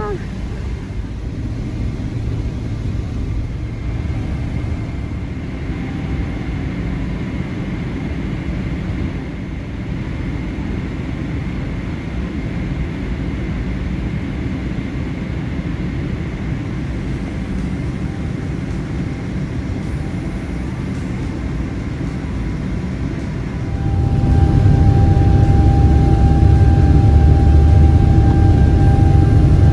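Jet airliner engines, a steady rumble, then about 24 seconds in the Boeing 777-200LR's GE90 engines spool up to take-off power, heard from the cabin: the rumble grows louder, with a steady whine over it, as the take-off roll begins.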